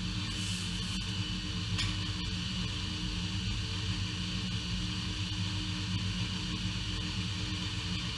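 Small horizontal/vertical metal-cutting bandsaw running steadily, its motor humming while the bimetal blade cuts through a bundle of four pieces of 1/2-inch metal round stock.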